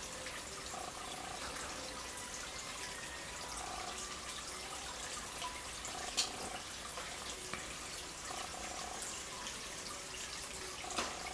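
Water trickling and splashing steadily into a koi pond, with a couple of sharper clicks: one about six seconds in and another near the end.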